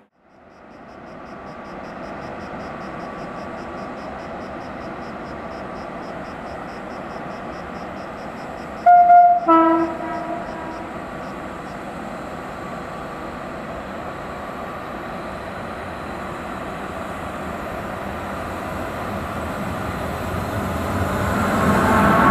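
Horn of a Renfe class 251 electric locomotive sounding one loud two-note blast, a higher note then a lower one, as it approaches with a container freight train. A fast, high ticking runs under it, and near the end the rumble of the locomotive and wagons rises as the train passes close.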